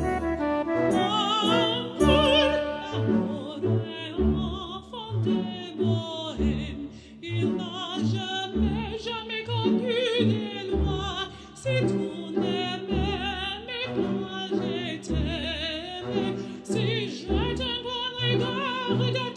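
Background music: operatic singing with vibrato over an orchestra, with a steady repeating bass rhythm.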